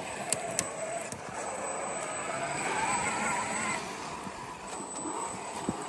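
Brushless electric motor of a Traxxas X-Maxx RC truck whining, its pitch rising and falling as the throttle changes, with a couple of sharp clicks in the first second.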